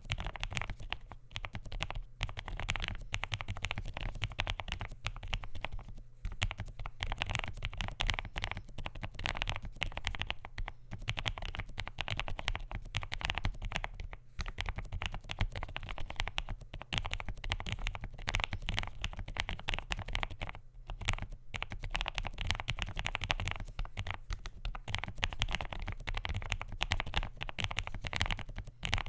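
Continuous typing on a Marvo ColorReco S75 low-profile mechanical keyboard with lubed, filmed Kailh Low Profile White Peach tactile switches, a polycarbonate plate and PBT keycaps. The keystrokes run in a dense stream of clacks, with a few brief pauses.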